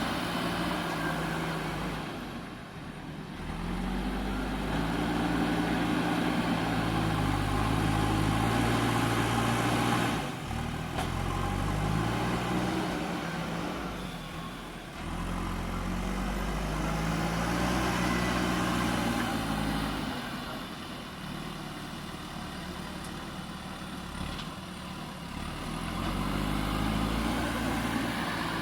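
JCB 3DX Super backhoe loader's diesel engine revving up and dropping back towards idle in repeated working cycles, about every ten seconds, as the machine loads soil.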